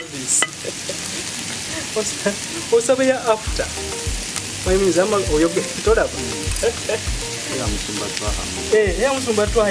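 Diced potato, carrot, green pepper and onion frying in oil in a pan: a steady sizzle as they are stirred with a wooden spatula. Background music with a regular beat comes in about three and a half seconds in.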